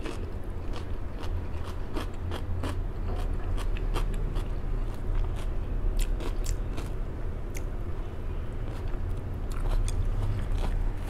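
Close-up chewing and crunching of a mouthful of raw vegetable salad (lettuce, cucumber, onion): many crisp clicks of crunching over a low steady hum.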